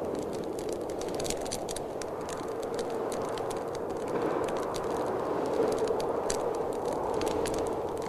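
Fireplace fire crackling, with scattered sharp pops, over a steady rushing of blizzard wind.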